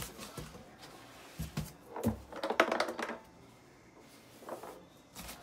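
Hollow plastic base of a Pexmor freestanding punching bag handled in and out of its cardboard box: a few knocks and cardboard scraping, loudest in a cluster of clatter about two to three seconds in.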